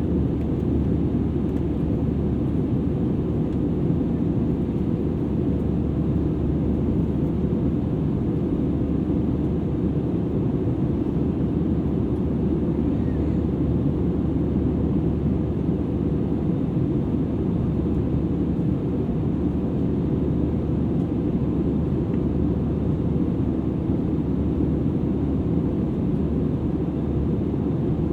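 Steady cabin roar inside an Airbus A320-200ceo airliner in flight, heard from a rear seat: engine and airflow noise, deep and unchanging throughout.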